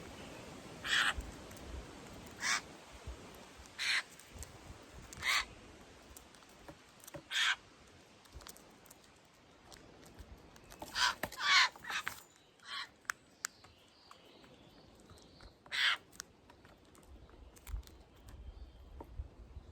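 Eurasian jays giving short, harsh, rasping screech calls, about nine in all. Most come a second or two apart, with a quick run of three around eleven seconds in.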